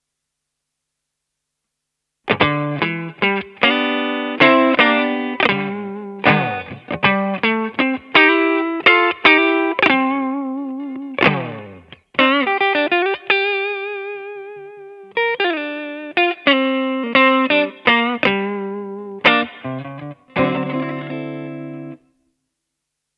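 Electric guitar played through an MXR CSP202 Custom Comp compressor pedal. After about two seconds of silence it plays a lead phrase of picked single notes and double stops, with long held notes given vibrato in the middle. It ends on a chord that cuts off sharply.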